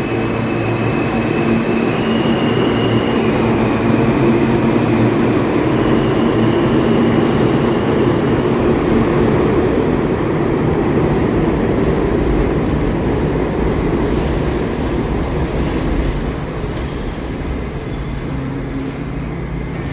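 New York City subway train running along the track: a steady rumble, with thin wheel squeals at times and a short rising whine about two-thirds of the way through.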